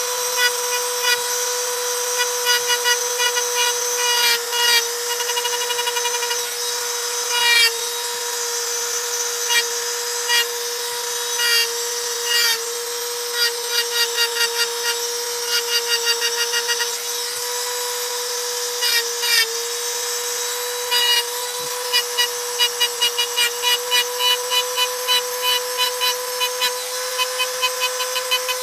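Small hand-held rotary tool running at a steady high whine as its bit engraves lines into a stone slab, broken again and again by short bursts of fast rattling ticks as the bit works into the stone.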